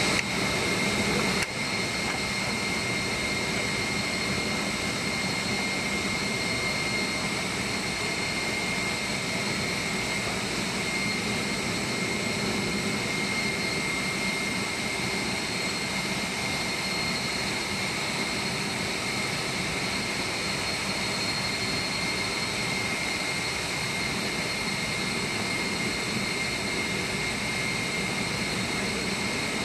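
Steady machinery-room noise: a constant drone from running machinery with a steady high-pitched whine in it. There is one short knock about a second and a half in.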